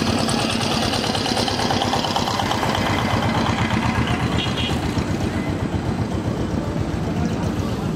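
An engine running steadily, with a fast, even pulsing.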